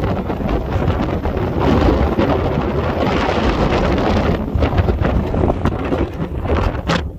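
Strong wind buffeting the microphone, a loud, rough rumble that eases slightly after about four seconds.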